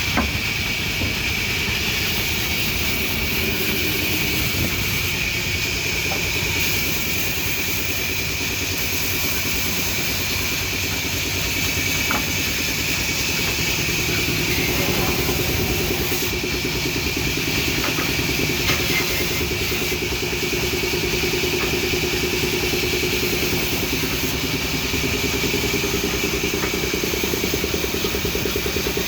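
Band saw running steadily, a continuous machine noise with a high whine above it; a lower hum grows stronger about halfway through.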